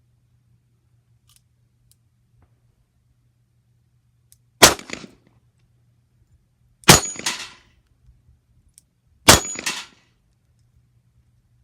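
Three shots from a Colt Agent .38 Special snub-nose revolver firing 125-grain lead cowboy loads, a little over two seconds apart. Each shot is followed by a short clatter and ring from steel plate targets being hit.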